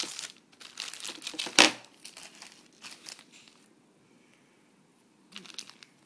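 Plastic packaging crinkling and rustling as a power adapter and its coiled cord are unpacked by hand: bursts of crinkling with one sharper crunch about a second and a half in, then a short pause before a brief crinkle near the end.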